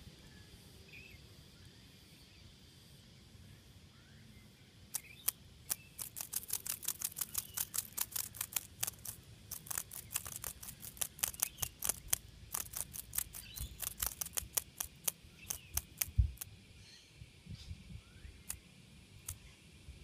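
A cicada caught in a spider web beating its wings in rapid clicking bursts, several clicks a second, as it struggles to break free. The clicking starts about five seconds in and dies down after about sixteen seconds, leaving a few scattered clicks.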